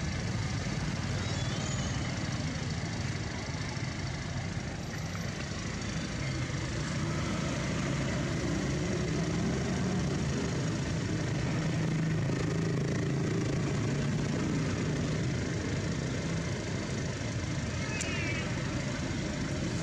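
Steady low outdoor background rumble, with a few faint, brief high chirps about a second and a half in and again near the end.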